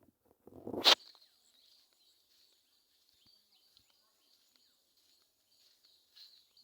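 A short, loud rustle and knock of handling noise about a second in. After it, faint, steady, high-pitched chirping from the forest.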